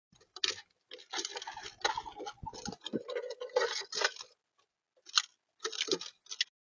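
Irregular pecking, tapping and seed crunching on a bird feeder right at the feeder camera's microphone, in scattered bursts with a gap near the middle.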